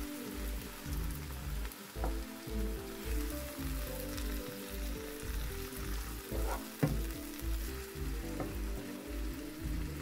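Chopped spinach and onion sizzling in olive oil in a frying pan while a wooden spoon stirs them, with a few sharp knocks, the loudest about two-thirds of the way through. Background music with a steady bass beat plays alongside.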